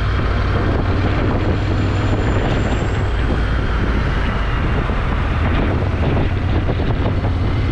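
Motorcycle engine running steadily while riding, with wind and road noise on the bike-mounted camera's microphone.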